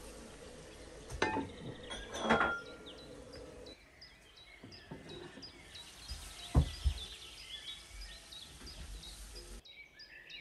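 A glass pot lid is set down on a metal cooking pot with two sharp, ringing clinks about a second apart. Later comes a single dull thud, with repeated faint high chirps in the background.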